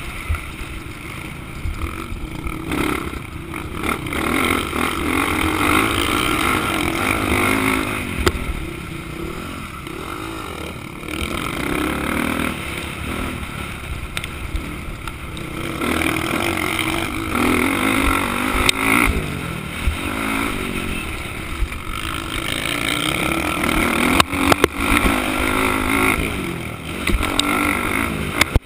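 Motocross dirt bike engine heard from the rider's helmet camera, revving up and dropping off again and again as it accelerates, shifts and backs off around the track, with wind noise and a few sharp clacks near the end.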